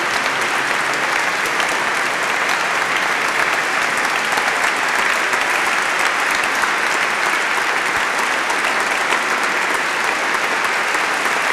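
A congregation applauding steadily, many hands clapping at once.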